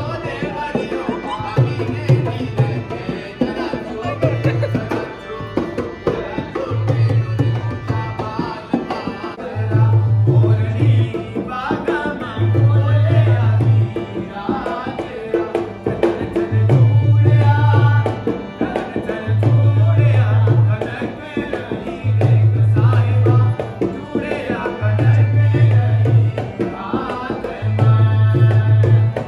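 Rajasthani folk music: a hand drum beats a quick steady rhythm under a singing voice, with a deep low note coming back about every two and a half seconds.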